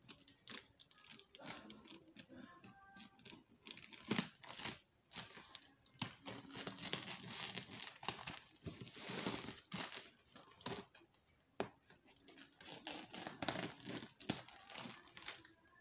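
Plastic wrap being torn and peeled off a cardboard parcel, with packing tape slit by a screwdriver: irregular crinkling, tearing and small clicks. The longest stretch of tearing comes about nine seconds in.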